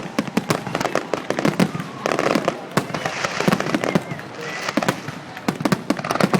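Fireworks display: a rapid, unbroken run of bangs and crackles, many a second.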